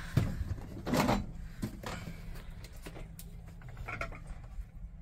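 Several sharp knocks and clatters of things being handled on wooden surfaces, the loudest about a second in. Near the end, water is poured from a plastic bottle into a stainless steel dog bowl.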